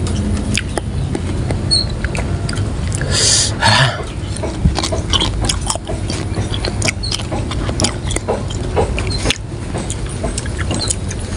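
Close-up eating sounds of raw water apple and cucumber dipped in rujak sauce: crunchy bites, chewing and wet mouth smacks with scattered clicks, and a louder burst about three seconds in.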